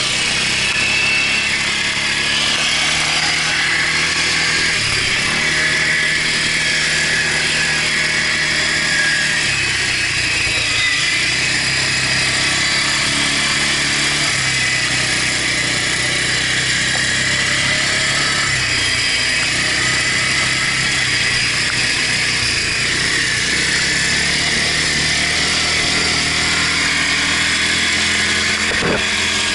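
Quad bike (ATV) engine running under way, heard from a camera mounted on the machine, its pitch shifting up and down several times, with a steady hiss of mechanical noise above it.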